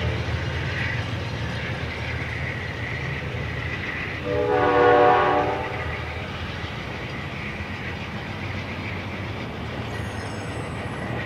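Amtrak P42DC diesel locomotive pulling a departing passenger train away, its engine rumbling steadily as it recedes. About four seconds in, it sounds one blast of its horn, a chord lasting about a second and a half.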